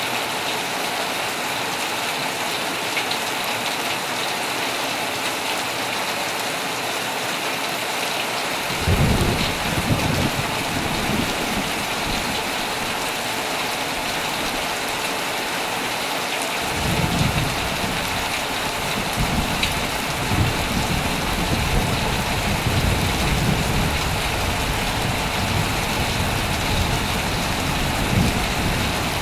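Heavy rain falling steadily on a tent, with thunder rumbling low about nine seconds in and again from about seventeen seconds on, rolling through to the end.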